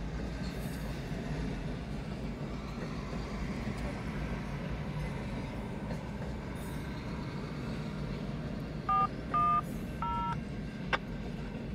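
Steady low rumble of a BNSF intermodal freight train's container and trailer cars rolling past a grade crossing. About nine seconds in come three short two-tone keypad beeps (DTMF) over the railroad radio scanner, then a single click.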